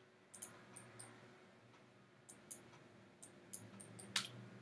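Faint computer mouse clicks, about ten of them scattered irregularly, the loudest about four seconds in, over a low steady hum.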